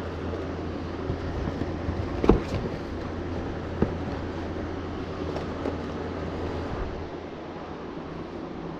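Knocks, clicks and cardboard rustling of someone rummaging by hand through a cardboard box of piston ring packages, the sharpest knock about two seconds in. Under it a steady low hum stops about seven seconds in.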